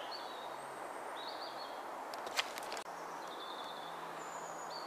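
Woodland ambience: a steady background hiss with a few short, thin, high bird calls, and one brief click about two and a half seconds in.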